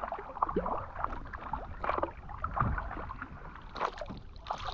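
Paddles dipping and splashing in river water with uneven strokes, over a steady low rumble.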